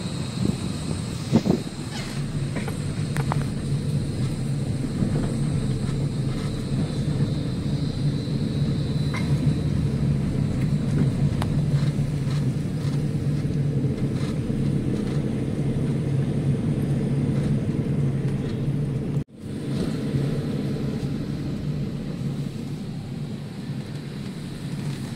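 Car running on the road, heard from inside the cabin: a steady low engine hum with road noise. The sound cuts out for an instant about three-quarters of the way through.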